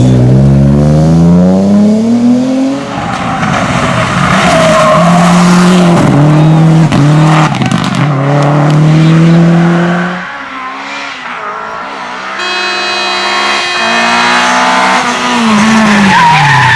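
Rally car engines run at full throttle. The pitch climbs and drops back several times as the driver shifts up, then fades about ten seconds in. Another car's engine comes up and falls in pitch as it goes past near the end.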